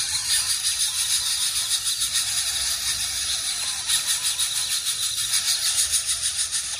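Steady, high-pitched hiss with a fast, even pulse and a faint low rumble underneath.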